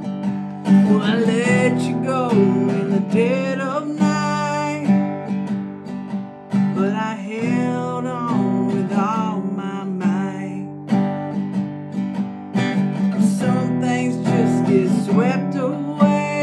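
Strummed acoustic guitar accompanying a voice singing long, wavering held notes.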